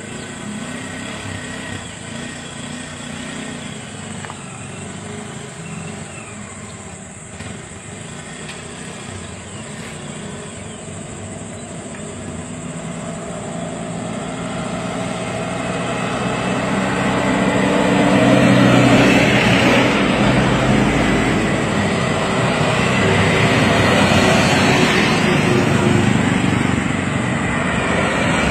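Road vehicle engines running nearby, a steady low drone that grows louder over the second half.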